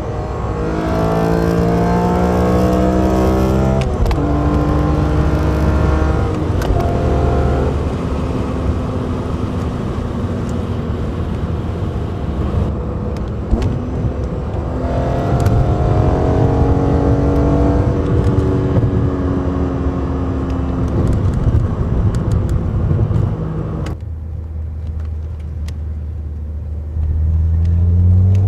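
BMW E46 M3's 3.2-litre S54 straight-six breathing through a carbon-fibre airbox with an Eventuri intake scoop, driven on the street: the engine note climbs in pitch under a pull for about four seconds, drops sharply at the gear change, then runs steadily. It pulls again with rising pitch around the middle, falls to a low steady note, and rises again near the end.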